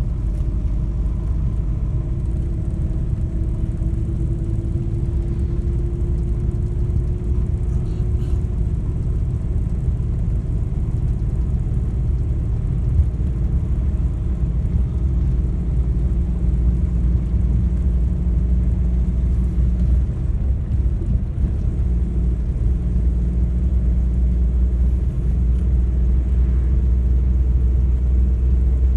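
Car interior road noise while driving: a steady low rumble of engine and tyres on the road, with a faint engine hum rising slightly in pitch a few seconds in.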